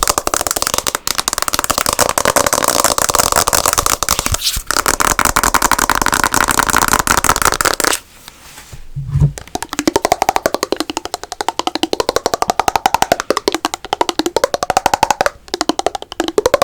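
Very fast ASMR tapping and scratching on assorted objects: dense scratchy clicking for the first half, a brief pause broken by one low thump, then rapid tapping on something that rings with a tone shifting up and down.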